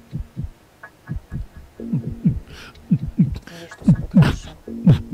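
Suspense heartbeat sound effect: deep thumps beating in pairs about once a second and growing louder, over a low droning tone.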